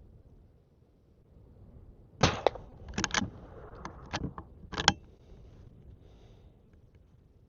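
A series of about eight sharp metallic clicks over roughly two and a half seconds, from the lever being worked on a Henry lever-action .22 rifle. The lever is opened to eject the spent case and closed to chamber the next round.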